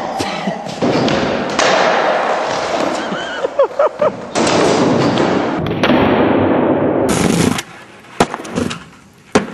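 Skateboard noise on a concrete floor: board clatter and wheels rolling. Near the end it turns quieter, with a few sharp clacks of a board.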